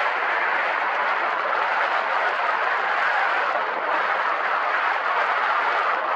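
Steady wind noise rushing over the microphone, an even hiss with no pitch.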